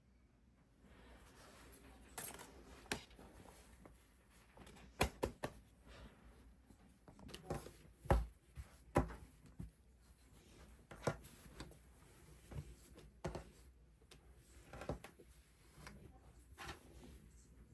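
Irregular light clicks, taps and knocks of small objects being handled, over a dozen in all with the loudest near the middle.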